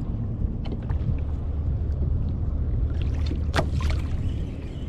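Low, steady wind rumble on the microphone and water slapping against a plastic kayak hull on choppy sea. A single sharp knock comes about three and a half seconds in.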